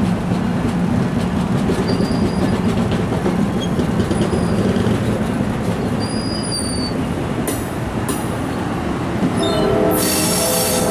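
NJ Transit Multilevel passenger coaches rolling past with a steady rumble and short high-pitched squeals. A louder, ringing squeal sets in near the end.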